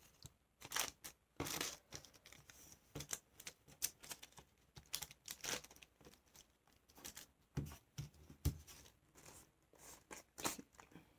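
Folded paper crinkling and rustling as it is handled and a glue stick is dabbed under its corners: faint, short crackles scattered irregularly throughout.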